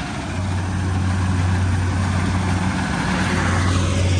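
Rice combine harvester's engine running steadily, a low even drone over a broad mechanical noise, growing a little louder about a second in.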